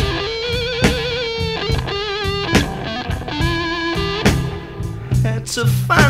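Blues-tinged rock band music: an electric guitar plays a wavering lead line over bass and a steady drum beat.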